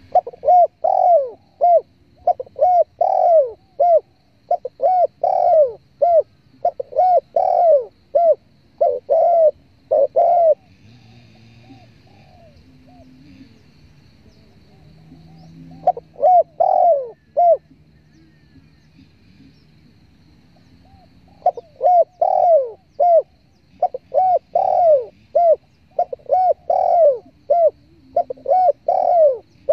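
Spotted dove (tekukur) cooing: phrases of short, repeated coos, with a pause of several seconds between phrases, played as a lure call to draw doves in.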